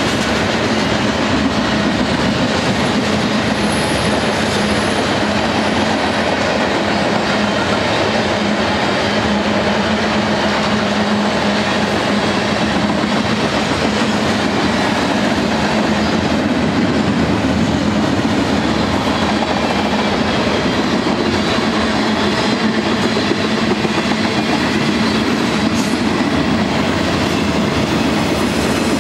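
Freight cars of a long mixed freight train (tank cars, hoppers, boxcars) rolling past close by: the steady rolling and rattling of steel wheels on the rail.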